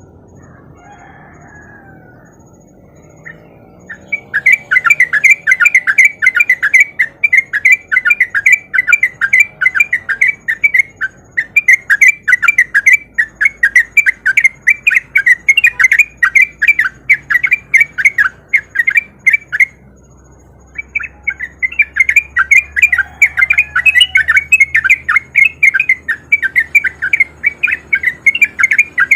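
Yellow-vented bulbul (trucukan) singing a rapid, continuous chattering song, the so-called 'ropel' song. It starts about four seconds in and runs in three long stretches of fast repeated notes, with two short breaks.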